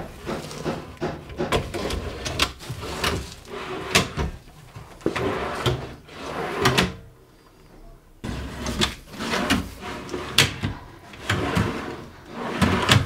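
OSB drawer box on steel ball-bearing telescopic slides, pushed in and pulled out several times. Each stroke gives a rushing roll of the slides and ends in a sharp knock. There is a short pause about seven seconds in.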